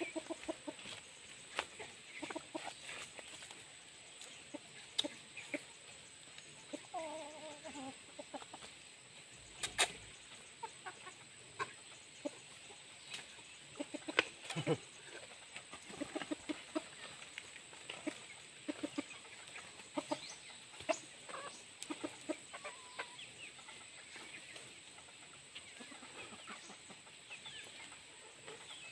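Chickens clucking in short scattered calls, with one longer wavering call about seven seconds in. A few sharp knocks stand out above them.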